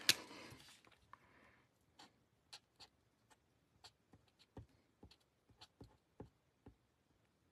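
Faint, scattered light taps of a marker tip dabbing ink onto card stock, about ten over several seconds, after a brief soft paper rustle at the start.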